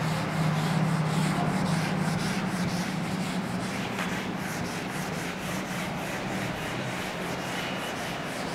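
Handheld whiteboard eraser rubbed back and forth across a whiteboard, wiping off marker writing in quick repeated strokes, over a steady low hum.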